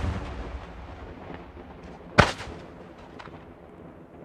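Daytime aerial firework shells bursting overhead: the long rumbling echo of a blast dies away, then a second loud bang about two seconds in rolls off in its own echo, with a few fainter cracks around it.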